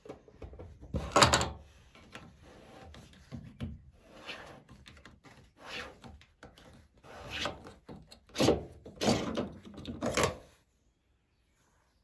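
Plastic knocks and scraping from a Hoover washing machine's drain-pump lint filter and its access flap being handled: a loud knock about a second in, then a run of uneven scraping strokes as the filter cap is twisted and unscrewed, stopping near the end.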